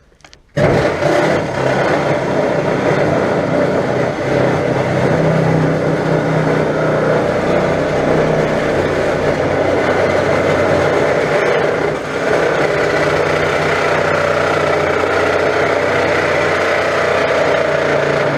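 Reciprocating saw running continuously as it cuts through the steel of a car body shell. It starts abruptly about half a second in, with a brief dip around twelve seconds in.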